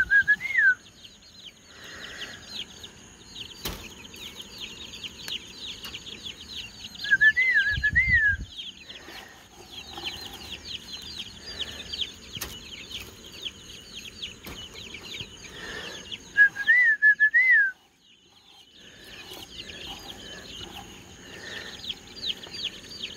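A brood of young chicks and guinea keets peeping constantly, many rapid high chirps overlapping. A louder warbling call of a few up-and-down notes repeats three times, about eight to nine seconds apart. A low rumble of handling comes about eight seconds in.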